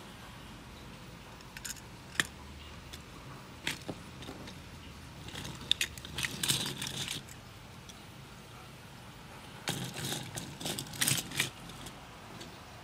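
Cable assemblies with grey plastic-hooded D-sub connectors being handled: scattered clicks and clatter as the connector shells knock together, in two busier spells, one near the middle and one later.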